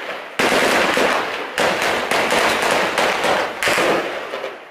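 Gunfire during street clashes: four loud reports at irregular spacing, each ringing out in a long echo that fades over about a second.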